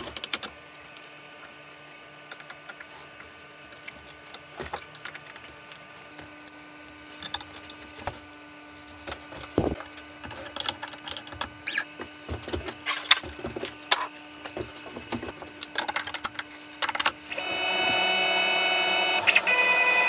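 Scattered light clicks and taps of small metal parts being handled and fitted at a CNC router's spindle, a collet and router bit among them, over a faint steady hum. Near the end a machine motor starts and runs steadily.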